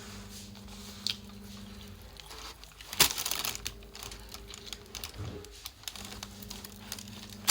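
Close-miked chewing of a kota (a bread quarter filled with Russian sausage, egg, cheese and chips), with sharp wet mouth clicks and crunches. The loudest burst, followed by about a second of crackly chewing, comes about three seconds in.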